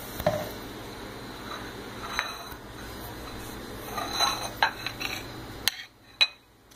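Table knife clinking and scraping against a plate and a peanut butter jar while spreading peanut butter on bread: a handful of sharp clinks over a steady background hum, which drops away near the end.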